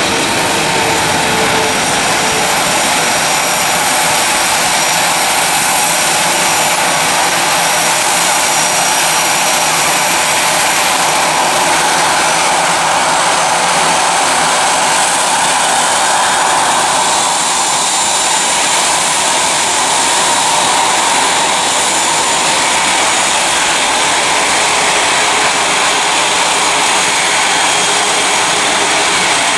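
Boeing 777 jet airliner's twin engines during landing and rollout: a steady, loud rush of jet noise, with a faint whine that falls in pitch about a second in.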